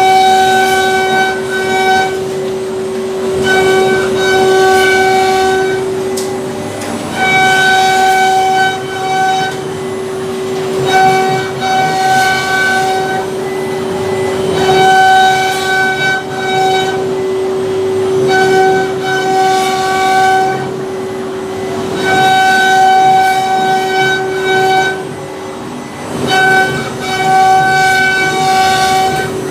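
CNC router carving wood. The spindle gives a steady high whine throughout, and a second, higher whine comes and goes in a regular cycle about every four seconds over the hiss of cutting.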